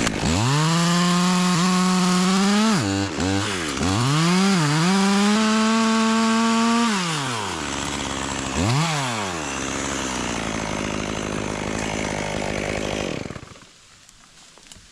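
Two-stroke chainsaw revving up and cutting through a maple limb at full throttle for about seven seconds, dipping briefly twice, then dropping back to idle with one more quick rev, and stopping about a second and a half before the end.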